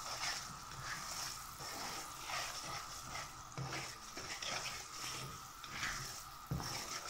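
Sugar, milk and ghee bubbling and sizzling in a non-stick frying pan while a slotted spatula stirs through it in repeated strokes, roughly one a second, as the sugar melts toward a syrup.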